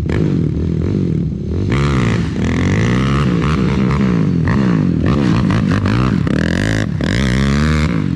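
ATV engine revving up and down over and over, the pitch climbing and dropping about once a second as the rider throttles on and off through tight turns around the barrels.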